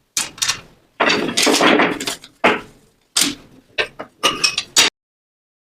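A run of sharp knocks and clunks with short ringing tails, about seven of them, with a longer scraping clatter about a second in; it all stops abruptly near the end.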